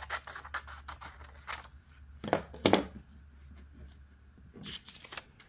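Scissors snipping through paper in a quick run of cuts, with two louder snips a little past halfway, trimming the excess paper away from a traced design.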